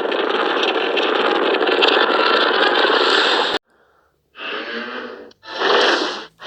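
Godzilla roars: one long roar that cuts off suddenly about three and a half seconds in, then two shorter roars after a brief pause.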